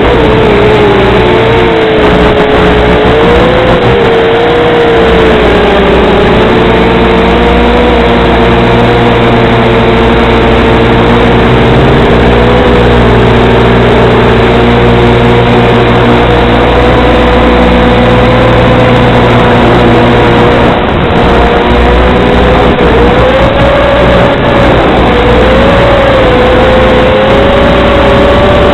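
Model aircraft's motor and propeller whining loudly, the pitch drifting up and down with the throttle, over a steady low hum, as picked up on board the aircraft.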